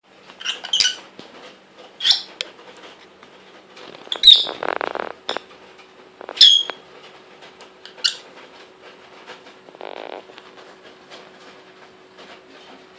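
A lovebird giving about five short, sharp chirps a second or two apart. Two short spells of paper being shredded come in between, one near the middle and one about ten seconds in.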